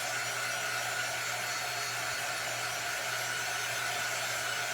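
Handheld craft drying tool running steadily: a constant rush of blown air with a steady whine.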